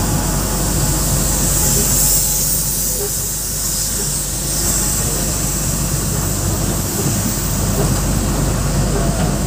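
Steady low mechanical rumble with a hiss above it, the noise of engines and heavy plant machinery in a steel works.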